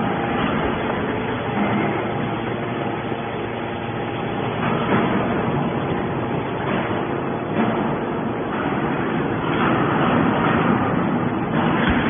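Hydraulic scrap metal baler running: the steady mechanical hum of its hydraulic power unit, with a few faint steady tones, while the ram pushes a compressed bale of metal shavings out of the chamber.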